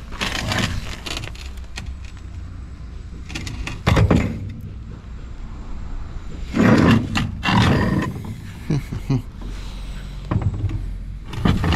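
Small cast-metal pump being handled and turned over on a steel plate: a few irregular knocks and scrapes of metal on metal. The loudest is a sharp knock about four seconds in, with a longer run of clatter around seven seconds in, over a low steady rumble.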